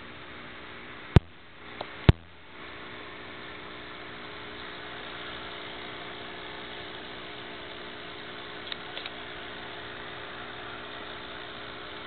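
Steady electrical hum under an even hiss, typical of a small saltwater aquarium's running pump or filter. About a second in come two sharp clicks close together, and a few faint ticks later on.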